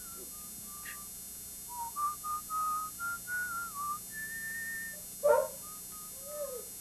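A small hand-held whistle playing a slow, simple tune of clear held notes, the last one higher and longer. Just after it a dog gives one short, loud bark, followed by a brief faint whine.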